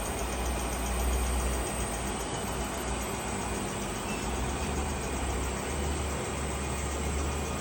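A machine running steadily, with a strong low hum underneath that swells and dips.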